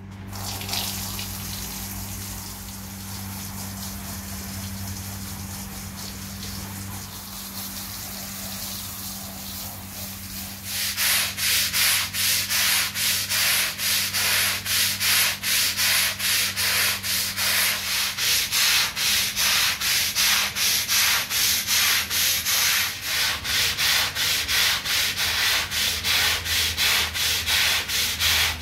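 Stiff-bristled push broom scrubbing a wet, soapy rug, brushed back and forth in even strokes a little over two a second. These strokes start about ten seconds in, after a stretch of steady hiss over a low hum.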